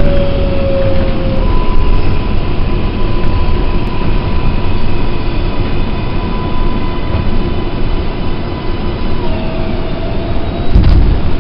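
R142A subway car's propulsion whine over the steady rumble of the running car. A tone slides down at the start, gives way to a steady higher whine for about eight seconds, then drops to a lower tone. A short heavy thud comes near the end.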